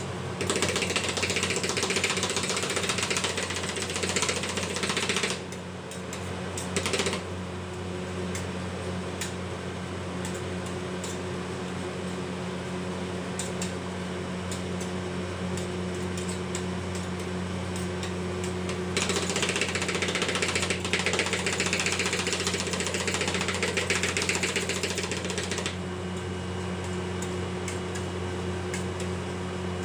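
Metal spatulas rapidly chopping and scraping on the steel cold plate of a rolled-ice-cream machine. The fast tapping comes in two long spells, one near the start and one past the middle, with quieter scraping between, over a steady low hum.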